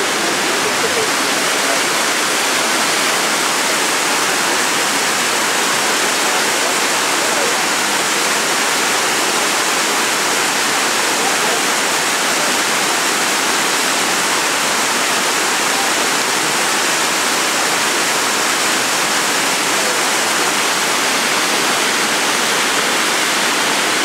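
Waterfall pouring steadily over terraced travertine cascades: a constant, even rush of falling water.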